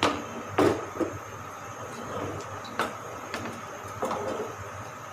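Spatula scraping and knocking against a nonstick frying pan while stirring sliced onions in oil: about six short strokes, the loudest in the first second.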